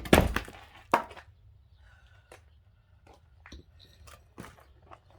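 An axe strikes a log of firewood with a loud crack followed by a short crackling rattle as it splits, then a second sharp knock about a second in. After that only scattered light knocks and clicks.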